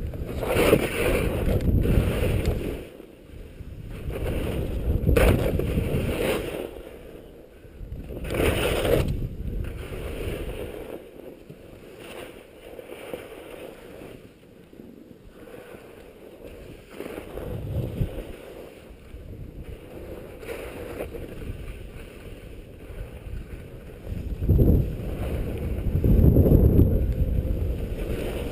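Wind rushing over a skier's camera microphone, mixed with skis scraping and hissing over small moguls. It comes in surges of a couple of seconds with quieter stretches between, loudest at the start and near the end.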